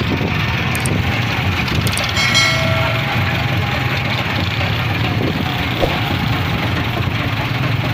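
Tractor diesel engine running steadily close by, a constant low hum. A short high-pitched tone sounds a little over two seconds in.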